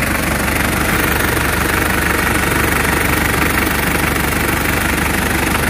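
Old van's engine idling steadily, heard close up in the open engine bay.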